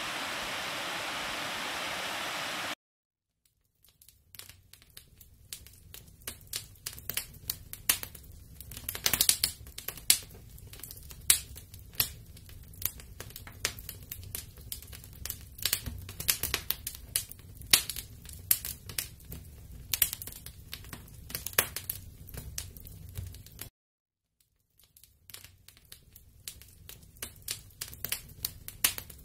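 A steady rushing hiss that cuts off suddenly, then a wood campfire crackling: irregular sharp pops and snaps over a low rumble of burning. The crackling breaks off briefly near the end and resumes.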